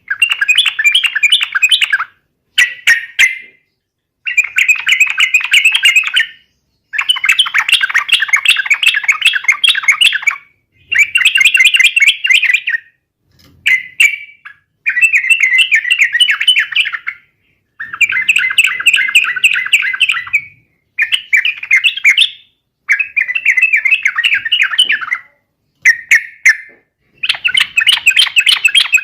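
Yellow-vented bulbul (trucukan) singing in rapid, bubbling chattering phrases, one to three seconds each, broken by short pauses: the loud, busy 'gacor' song used to lure other trucukan into answering.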